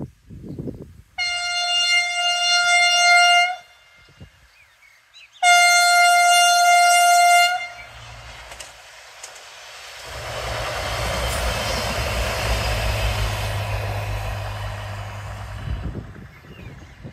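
Alstom Coradia LINT diesel train sounding its horn in two long blasts on one note, each about two seconds. A few seconds later the train passes with a steady low engine hum and wheel noise that fade away near the end.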